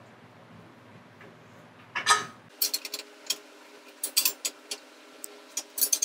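Steel 5/8 wrench clicking and clinking against the nuts of a U-bolt clamp as it is tightened down, a run of quick irregular clicks beginning about two seconds in. The clamp is being cinched very tight to take the play out of the tire carrier's lower section in the hitch receiver.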